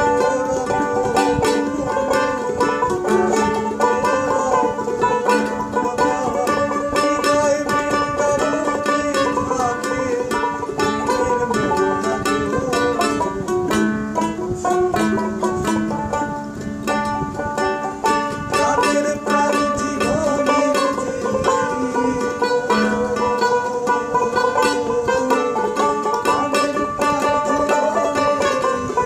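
Dotara, the Bengali fretless plucked lute, playing a melody with slides between notes over a steady lower note, in a baul folk tune.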